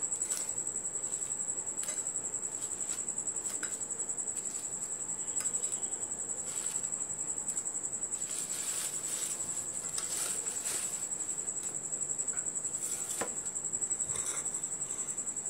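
A cricket trilling steadily, one high-pitched tone with a rapid even pulse, over faint rustles of paper towel and a light clink about 13 seconds in as fried potato rolls are moved onto a plate.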